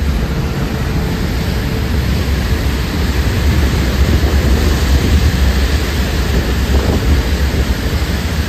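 Strong wind buffeting the microphone on the open deck of a high-speed ferry under way: a loud, steady low rumble with the rush of the churning wake beneath it.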